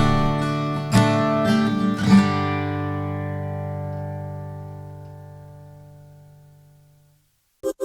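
Acoustic guitar strumming a few chords, the last chord left to ring and fade away; a short click near the end.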